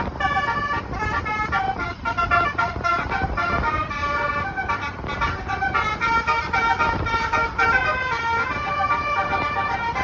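Bus basuri horn, an Indonesian multi-tone melodic horn, playing a flute-like tune of quick stepping notes without a break.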